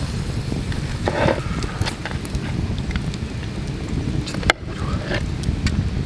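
Wood fire crackling under a wire grill, with scattered sharp pops and one loud crack about four and a half seconds in, over a steady low rumble.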